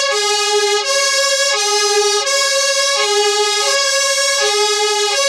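UK fire engine two-tone siren sounding hi-lo, switching steadily between a higher and a lower note about every three-quarters of a second.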